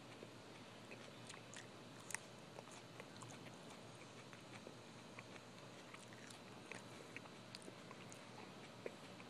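Faint chewing of a mouthful of raw dandelion, with soft irregular mouth clicks scattered throughout.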